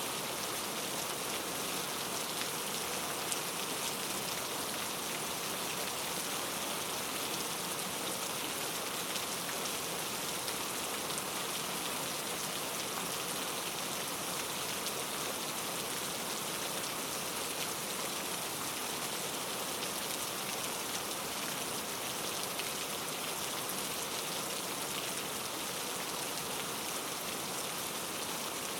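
Steady rain falling, an even hiss of drops hitting a surface with faint scattered patters.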